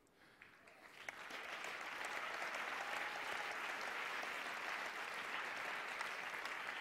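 An audience applauding, building over the first couple of seconds and then holding steady.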